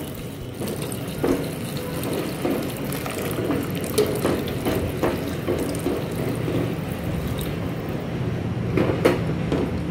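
Hot water pouring in a thin stream into a pot of thick masala paste as a plastic spoon stirs it through, thinning the paste into curry gravy; a few light knocks of the spoon against the aluminium pot.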